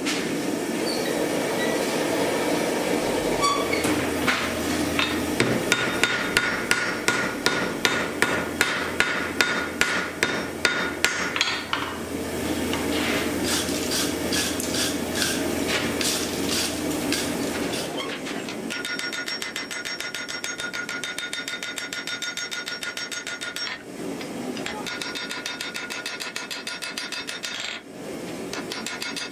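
Hand hammer forging a red-hot steel axe head on an anvil. It strikes heavy, even blows about two a second, then a run of quicker, lighter blows with the anvil ringing, broken by short pauses.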